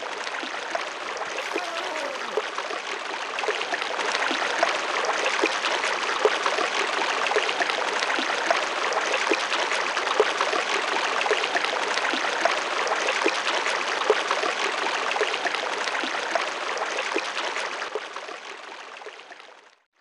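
Flowing stream water babbling and trickling, a steady rush with many small splashes, fading out over the last two seconds.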